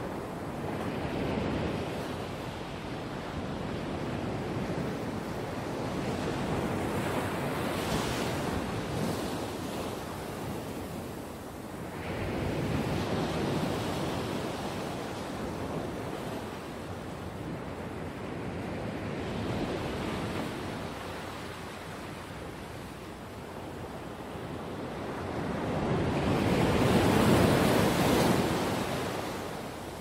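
Ocean surf: waves breaking and washing up the shore, swelling and ebbing every several seconds, with the biggest wave near the end.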